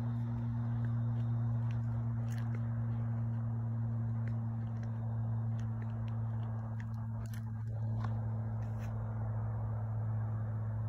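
Steady electric hum from the blower fans of lit inflatable Christmas lawn decorations, with a few light crunches and clicks over it.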